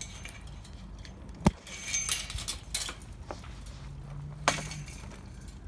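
Footsteps on wet wood-chip mulch, with two sharp knocks and some metallic clinking from the welded-wire garden fence.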